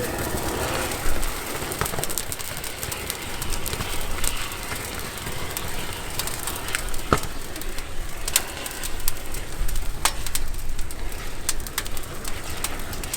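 A fire burning steadily with a hiss, crackling with scattered sharp pops and snaps: thermite burning through a radio-controlled car.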